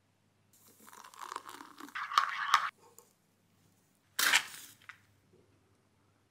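A matchbox handled and rubbed with scraping and rustling, including two sharp clicks, then a match struck on the box's striker about four seconds in, catching with a short hissing flare.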